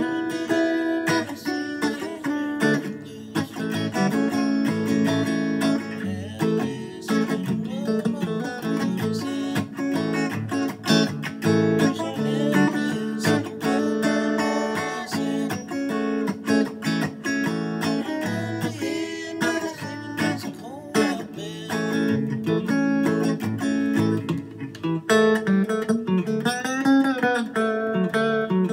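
Fender Stratocaster electric guitar played through a Fender amp: continuous picked notes and chords, with bent, wavering notes near the end.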